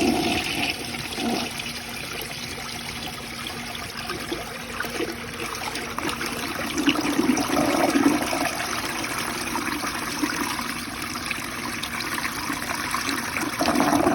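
1965 Rheem Claymore toilet flushing two washcloths away: water rushing and swirling through the bowl in a strong siphon, with a louder surge near the end.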